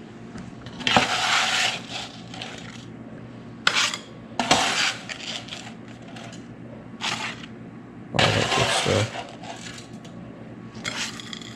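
A large plastic spatula scraping along a metal baking sheet as chicken tenders and tater tots are lifted off and set down on a ceramic plate, in about five separate scrapes with quieter gaps between.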